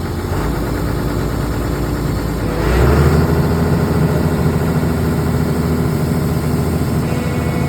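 Excavator's diesel engine running steadily, then stepping up to a higher, louder speed about three seconds in as it is throttled up.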